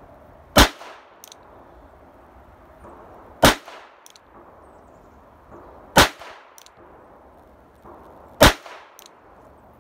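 Four .22LR shots from a Charter Arms Pathfinder revolver loaded with Blazer rounds and fired single action, each a sharp crack, about two and a half seconds apart.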